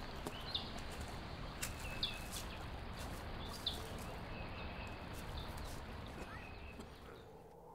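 Footsteps on dry, stony ground through brush, heard as a few sharp clicks, with short bird chirps every second or so over a steady outdoor hiss. The high sounds drop away suddenly near the end.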